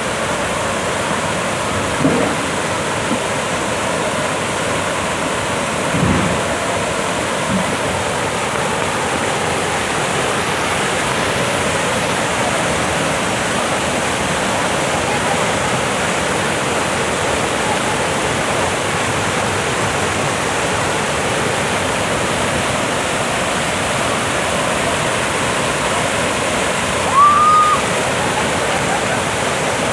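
Waterfall rushing with a steady, even roar of falling water. There are two brief low knocks in the first third, and a short rising chirp a few seconds before the end.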